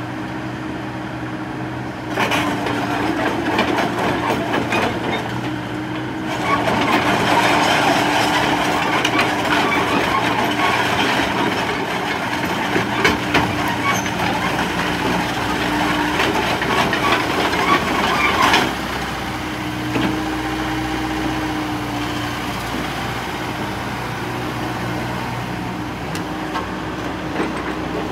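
Komatsu PC60-8 hydraulic excavator's 3.2-litre four-cylinder diesel running as the boom, arm and bucket are worked and the upper structure swings. The sound gets louder and rougher about two seconds in, and drops back to a steadier running sound about two-thirds of the way through.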